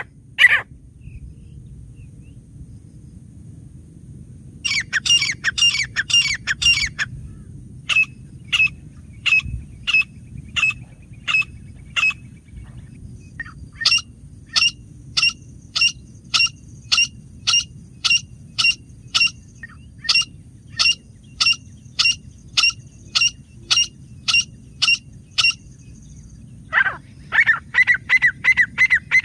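Grey francolin calling: long runs of short, sharp, evenly repeated notes, about two a second, with a quicker run about five seconds in and again near the end, over a faint low steady rumble.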